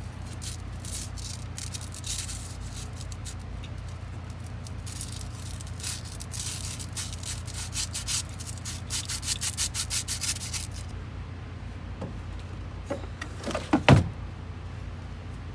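Hand tool working on a truck battery terminal: quick scraping or ratcheting strokes in runs, about three a second near the end, then a sharp knock near the end, over a steady low hum.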